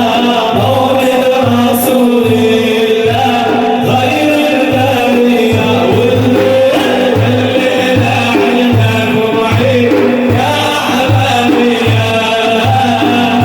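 Middle Eastern devotional music: a steady, even drum beat about one and a half times a second under a sustained melody, with singing in places.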